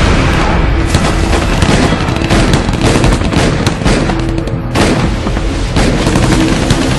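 Gunfire: many shots, some in rapid bursts, with a sharp crack about five seconds in, over tense background music.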